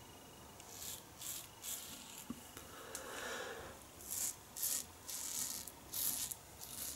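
1930s Gillette "New" long open-comb double-edge safety razor scraping through lathered stubble on the cheek: a run of short, faint rasping strokes, coming closer together in the second half.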